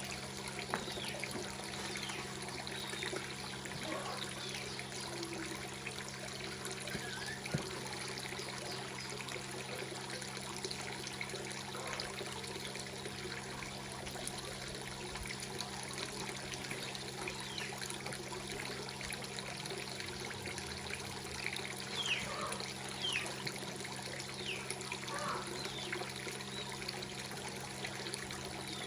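Water trickling steadily, with a low steady hum beneath it.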